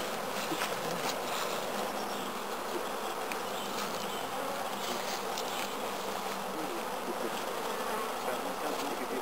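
Honeybees buzzing in a steady, unbroken drone around an opened hive, with a few faint ticks from the frames being handled.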